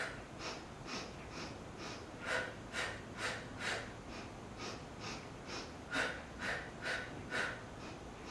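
A woman's short, rhythmic, percussive breaths during the Pilates Hundred, about two a second, in sets of several puffs that alternate in tone between in-breaths and out-breaths.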